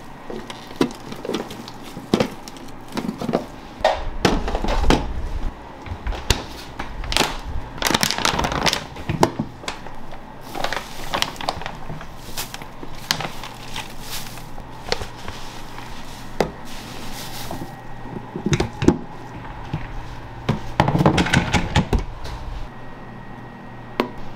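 Food-prep handling sounds: a string of clicks and knocks from plastic food containers and lids, mixed with the crinkle of a plastic bag as bonito flakes are pulled out.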